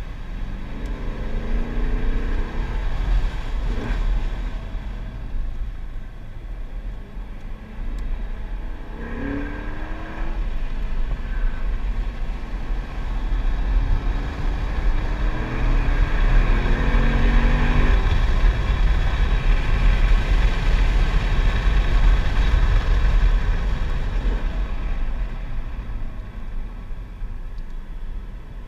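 Chevrolet Corvette C7's V8 heard from inside the cabin while lapping a circuit, the engine note climbing in pitch several times as the car accelerates through the gears, with a steady rush of wind and road noise underneath. It is loudest through the middle and eases off near the end as the driver lifts.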